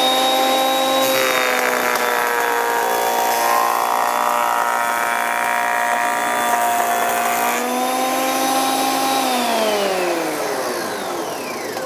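Parkside PADM 1250 A1 jointer-planer running with a high motor whine, taking a light jointing cut. A board is fed over the cutterhead from about a second in until about seven seconds, adding a cutting hiss, and the whine dips slightly under the load. Near the end the machine is switched off and the whine falls steadily as the cutterhead spins down quickly.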